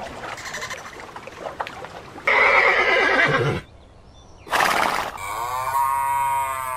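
A horse neighing, followed near the end by a cow giving one long moo that rises and then falls in pitch.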